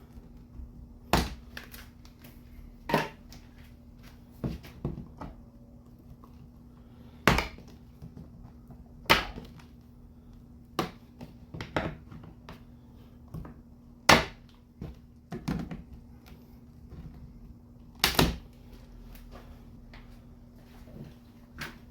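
Irregular sharp clicks and knocks, about ten in all, of tools and electrical cable being handled and set down on a work surface, over a faint steady hum.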